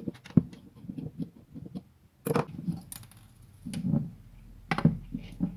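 Small clicks, taps and rattles of a plastic electric ducted fan unit being handled while its screws are undone, with a sharper knock about two seconds in.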